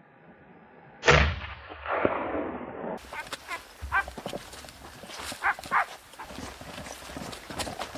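A gunshot at a wild boar about a second in, its report echoing off the hillside, with a second sharp crack about a second later. Then footsteps crunching along a dry scrub trail, with a few short pitched calls.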